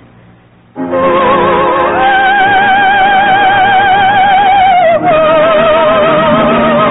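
Soprano voice holding the long final note of a song with wide vibrato over a studio orchestra, which swells in after a brief hush about a second in; the held note steps down to a lower pitch about five seconds in.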